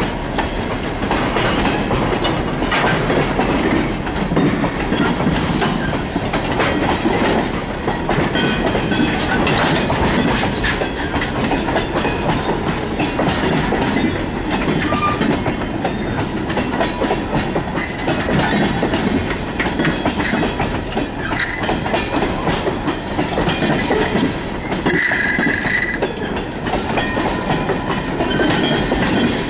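Freight train of covered hoppers and tank cars rolling past close by, the wheels clicking steadily over the rail joints, with a brief high tone near the end.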